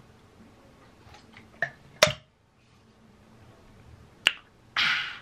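Drinking from a plastic water bottle: a few small clicks, then a sharp snap about two seconds in and another click about four seconds in, then a short breathy exhale near the end.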